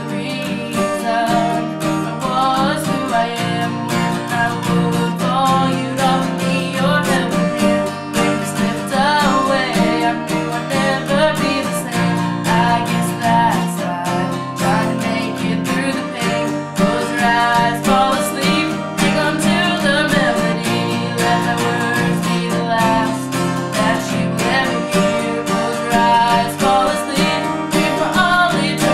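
Acoustic guitar strummed in a steady accompaniment, with a solo voice singing a melody over it from about two seconds in.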